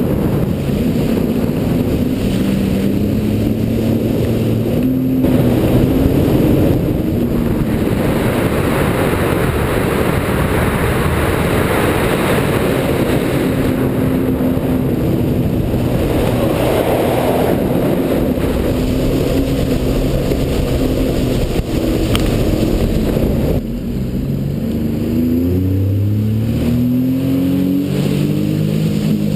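Sea-Doo GTX iS personal watercraft running at speed, its engine note rising and falling with the throttle over the rush of water and wind. About two-thirds of the way through the hiss drops back, and near the end the engine climbs steadily in pitch as the craft accelerates again.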